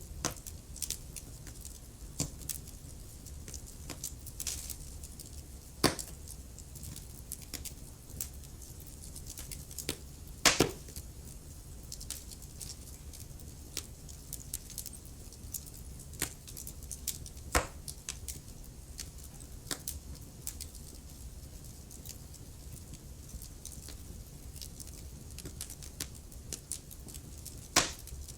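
Wood fire in a fireplace crackling, with constant small ticks over a low rumble and a few loud sharp pops, about four in all.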